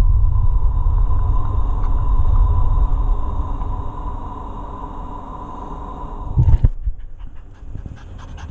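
Low rumbling handling noise on the camera's microphone, with a faint steady whine above it, while a small dog is rubbed and held close to the camera. A thump about six and a half seconds in, as the camera swings, ends the rumble and it falls quieter.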